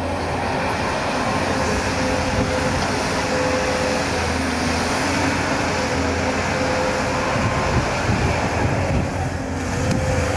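JCB excavator's diesel engine running steadily, a continuous machine noise with a constant low hum.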